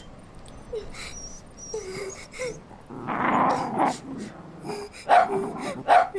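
Cartoon sound effect of a dog growling for about a second, then barking twice near the end. Soft short cries come before it.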